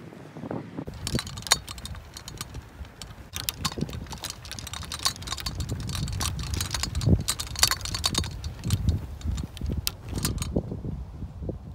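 Handling noise from a phone being carried on the move: rapid clicks and rustling over a low wind rumble on the microphone, starting about a second in and stopping shortly before the end.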